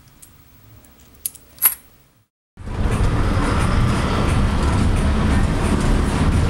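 A few light clinks of coins handled in a hand, the loudest just before a brief cut to silence; then the steady engine and road noise of a city bus heard from inside, which takes up the rest.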